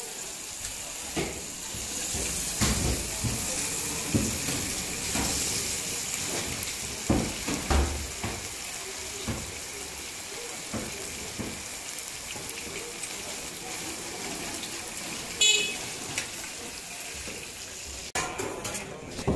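Marinated chicken tikka pieces sizzling steadily as they deep-fry in oil on a large flat iron pan, with scattered knocks of a metal spatula on the pan. A short high-pitched toot sounds about fifteen seconds in.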